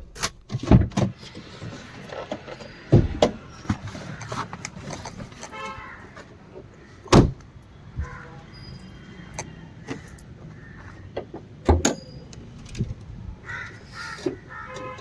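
Sharp clunks and knocks of a car door and bonnet being opened and shut, about five in all, the loudest about seven seconds in. Under them runs a steady low hum of the Tata Zest's 1.2-litre petrol engine idling.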